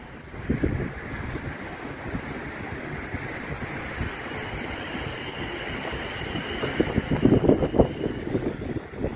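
South Western Railway Siemens Desiro electric multiple unit rolling past on curved track, its wheels giving a thin squeal on the curve. Gusts of wind buffet the microphone near the end.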